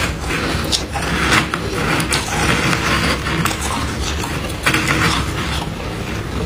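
Metal spoon scraping and scooping soft freezer frost in a plastic container: a continuous crunchy, grainy scraping with a few sharp clicks of the spoon.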